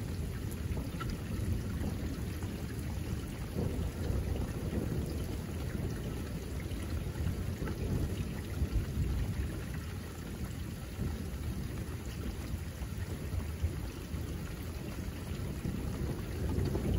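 Thunder rumbling low and long over steady rain, with scattered raindrop ticks; the rumble eases a little midway and builds again near the end.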